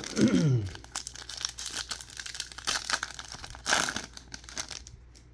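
Foil wrapper of a trading card pack crinkling and tearing as it is ripped open by hand, with a louder rip about four seconds in.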